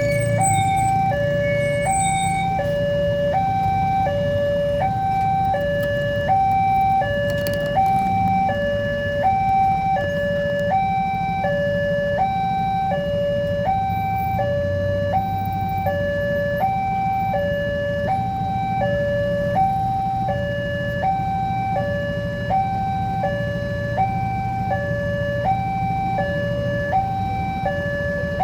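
Indonesian railway level-crossing warning alarm sounding an electronic two-tone signal, alternating evenly between a lower and a higher tone about once a second, warning that a train is approaching and the barriers are closing. A steady low rumble runs beneath it.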